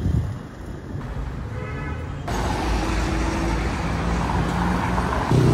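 City street traffic: a steady low rumble of passing cars and their engines. It comes in suddenly about two seconds in, after a quieter stretch.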